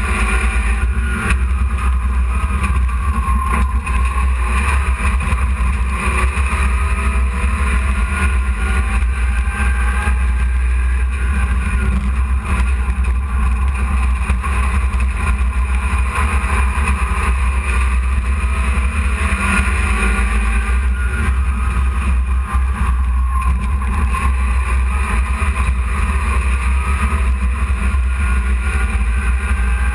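Dirt-track hobby stock truck's engine running, heard from inside the cab over a heavy low rumble. Its pitch rises and falls gently every several seconds as the truck speeds up and slows around the oval.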